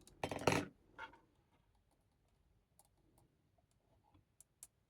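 A thin tool scraping and clicking against a socketed CIA chip as it is pried out of its socket, with a short rasping scrape about half a second in, a smaller one at one second, then a few faint ticks.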